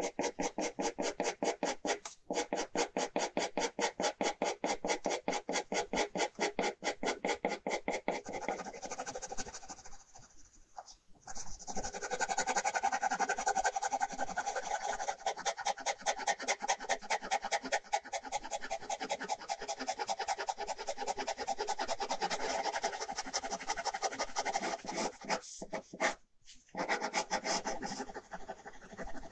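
Ballpoint pen scratching on paper in rapid back-and-forth hatching strokes, several strokes a second, broken by a few brief pauses.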